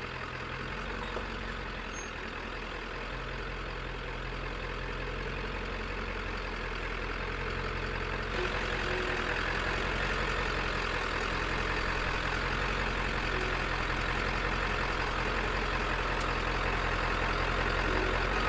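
Diesel engine of a Ford F-350 truck camper running steadily at low speed, growing gradually louder, with a jump in level about eight seconds in.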